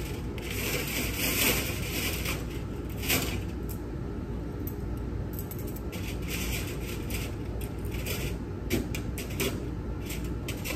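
Stainless steel surgical clamps (Ochsner clamps) being picked up, counted and laid on the tray: scattered metallic clicks, clinks and short scrapes over a steady low background hum.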